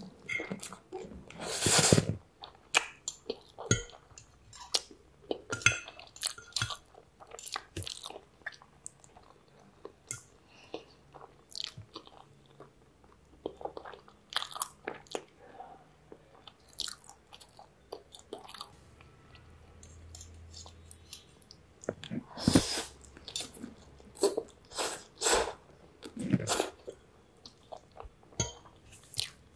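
Close-miked chewing and slurping of spaghetti noodles: many short, wet mouth sounds, louder about two seconds in and again near the end.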